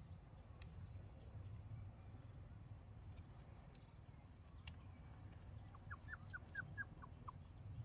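Quiet background with a steady low rumble. About a second and a half before the end comes a quick run of about seven short, high, falling animal calls.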